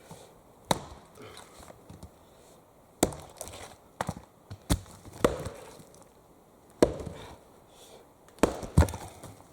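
An axe chopping a piece of wood into pieces: about eight sharp, irregularly spaced blows, the last two close together.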